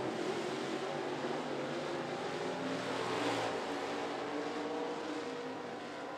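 Dirt-track race car engines running at speed around the oval. The sound swells to a peak about three seconds in as the cars pass, then eases off.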